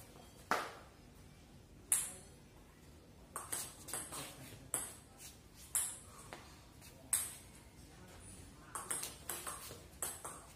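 Table tennis rally: a ping-pong ball clicking off the paddles and bouncing on the table, a string of sharp, separate pocks spaced roughly half a second to a second apart.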